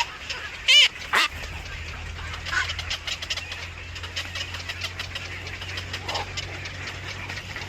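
A bird at the nest gives two loud calls about a second in, over a constant run of short, high chirps from the young birds. A low steady hum runs underneath.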